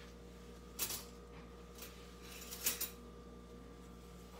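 Two brief rustling handling noises, one about a second in and a longer, louder one in the middle, over a faint steady electrical hum.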